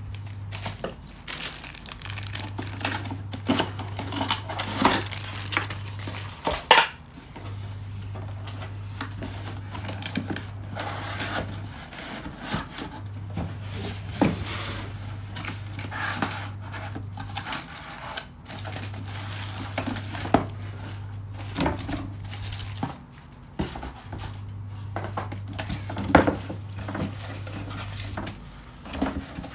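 Unboxing handling sounds: a laptop power adapter and its small cardboard box knocked, rubbed and set down in the hands, with plastic wrap crinkling and scattered clicks and taps. A steady low hum underneath breaks off for about a second every five seconds or so.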